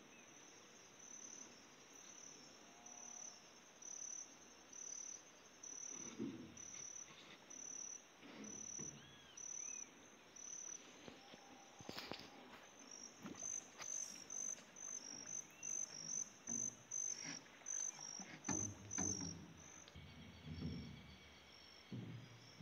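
Crickets chirping: a high, even chirp repeating about twice a second, then a faster run in the second half where two insects alternate at slightly different pitches. A few dull knocks and one sharp click sound faintly underneath.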